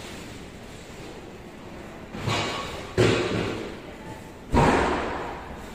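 Three loud thumps or bangs, the second and third sharp-edged, each dying away over about half a second with an echo.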